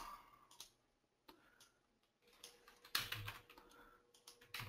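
Faint, scattered clicks of computer keyboard keys, a few at a time with short pauses, busiest about three seconds in.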